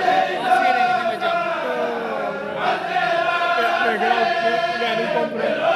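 A kourel, a group of men, chanting a xassida (Sufi devotional poem) together, voices held in long sustained notes that bend slowly in pitch.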